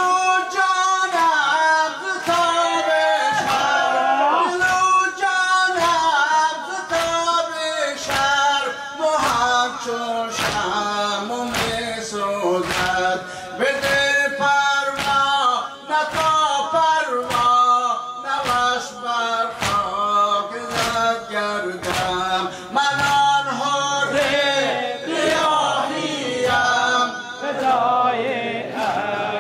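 A male voice chanting a Persian nawha, a Muharram lament, with the seated men striking their chests in unison about twice a second in time with it.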